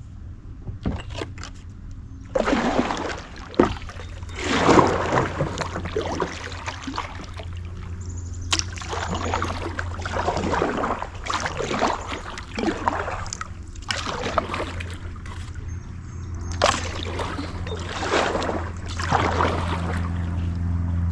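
Kayak paddle strokes splashing and dripping in the water, roughly one stroke every two seconds, over a steady low hum.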